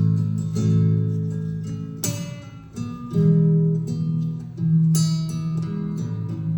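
Acoustic guitar played alone, chords strummed and left ringing, with hard new strums about two seconds in and again near five seconds.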